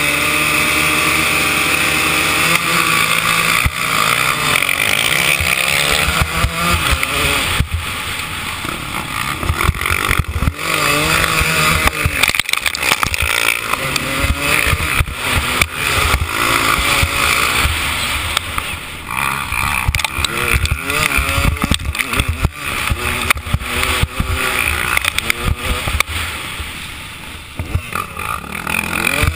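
Motocross bike engine running hard, its pitch rising and falling again and again as it revs and shifts through the gears. Wind buffets the microphone throughout, with sharp knocks from the bumpy track.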